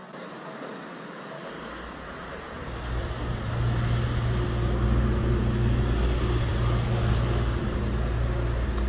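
A low engine drone that comes in about two seconds in, then runs steadily.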